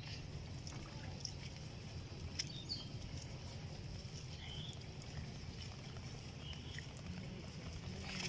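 Fish wriggling in shallow muddy water, with small irregular splashes and slaps over a steady low rumble.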